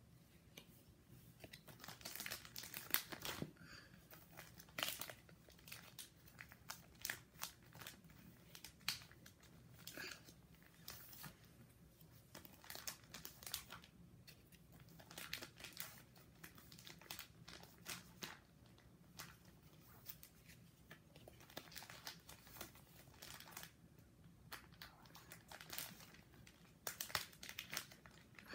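Plastic card-sleeve pages in a ring binder faintly crinkling and rustling in irregular spells as baseball cards are handled and slid into the pockets.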